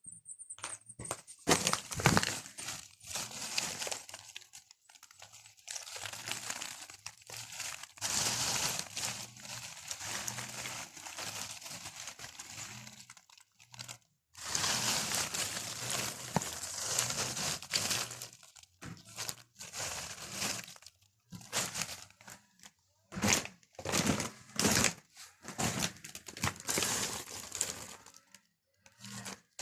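Dry pine bark crackling and rustling in irregular bursts as it is worked, with a faint steady low hum underneath.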